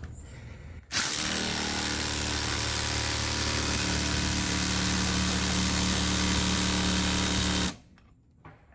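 Ryobi ONE+ HP brushless impact driver hammering continuously under full load against a torque tester, a loud steady rapid-fire rattle. It starts about a second in and cuts off sharply near the end.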